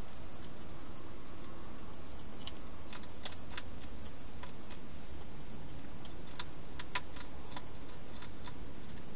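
Wild hedgehog eating from a bowl inside a plastic feeding box: scattered sharp crunching clicks in two clusters a few seconds apart, over a steady hiss.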